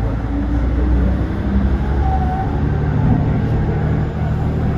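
Kiha 350 diesel railcar running along the line, heard from on board: a steady low engine hum under a wash of running noise, the engine note thickening a little about halfway through.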